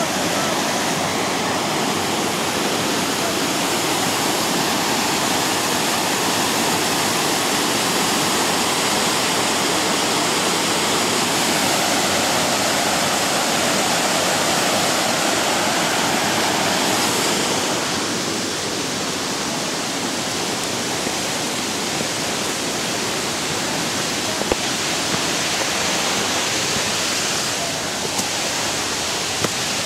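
Waterfall: a steady, loud rush of falling water, easing a little after about 18 seconds.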